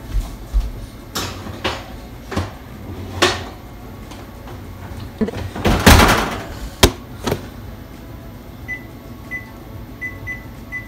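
Muffin tin knocking against the oven rack and the oven door shutting, loudest about six seconds in, followed by a row of short, high electronic beeps from the range's control panel.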